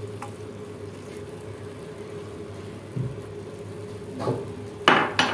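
Metal cookware clanking, two sharp clanks near the end, over a steady low hum. A softer knock comes about three seconds in.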